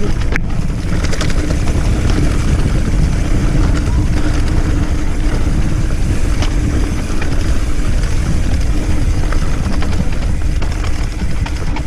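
Mountain bike rolling down a rough forest trail: a steady low rumble of tyres and wind on the microphone, with scattered rattles and clicks from the bike.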